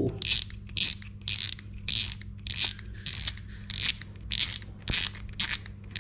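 Shimano Sedona 2500 spinning reel's drag clicker, a newly fitted louder aftermarket clicker, ratcheting in short bursts about twice a second as the spool slips against the drag: a shrill, ringing clicking that shows the new clicker is working.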